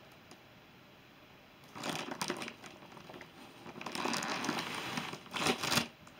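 Plastic wrapping crinkling and cardboard scraping as a rolled, plastic-wrapped mattress is dragged out of its box. The rustling comes in three bursts, starting about a second and a half in, with a short quiet gap between each.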